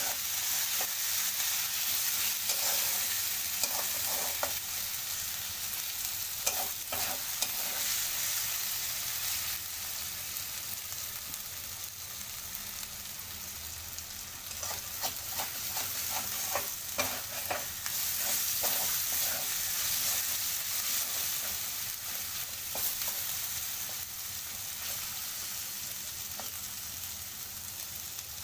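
Ginger-garlic paste and onions sizzling in hot oil in a pan, a steady frying hiss. A spoon stirs and scrapes against the pan now and then, most busily about fifteen to nineteen seconds in.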